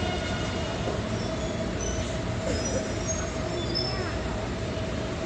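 Taipei Metro Bannan line train running into Banqiao station. A steady rumble of wheels on rail carries a steady hum, with a few faint, brief high-pitched wheel squeals.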